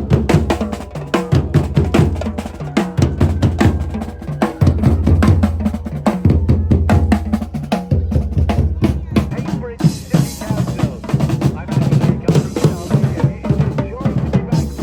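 Drummers playing a fast, dense drum rhythm with deep bass notes sounding underneath; a high hiss joins about ten seconds in.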